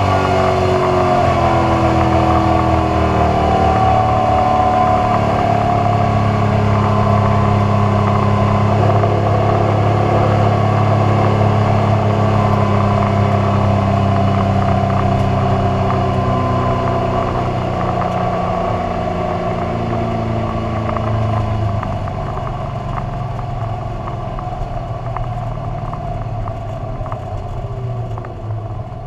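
Carbureted drag car's engine running at low, fairly steady speed, its pitch sliding down over the first few seconds and then holding, with the sound easing off over the last several seconds.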